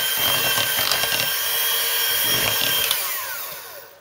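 Electric hand mixer running, its twin beaters whisking thick semolina cake batter in a ceramic bowl. About three seconds in it is switched off, and the motor's whine falls away as it spins down.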